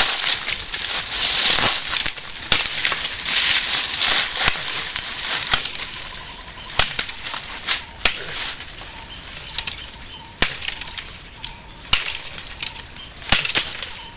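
Rustling and crunching, busiest in the first half, with several sharp cracks spread through it.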